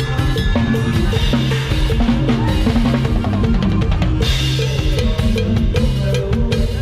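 Drum kit played with a lam sing band: bass drum, snare and rimshots driving a fast beat over held bass notes, the drum hits getting busier about four seconds in.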